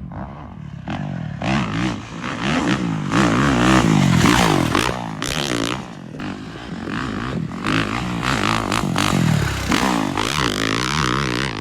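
Radio-controlled cars running on a dirt track, their motors revving up and down in quick swoops over the scrape and clatter of tyres on dirt. The overlapping pitches suggest more than one car.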